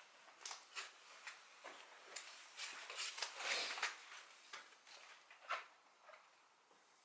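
Irregular scraping strokes and light clicks of a filler spreader working fiberglass filler onto a plastic car bumper, densest about three to four seconds in.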